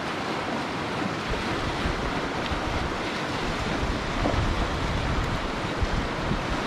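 Steady rush of a creek flowing over rocks, with wind gusting on the microphone in the middle.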